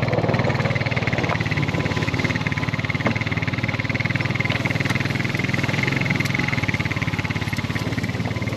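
Small pull-start outboard motor running steadily at a fast, even firing rhythm.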